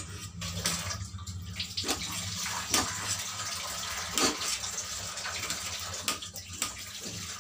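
A knife cutting soft roasted pumpkin on a steel plate, with a few sharp taps of the blade against the metal over a steady hiss.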